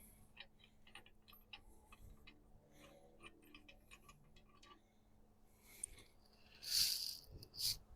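Faint, irregular clicking and ticking of tools being handled on engine parts, then two short hissing scrapes near the end.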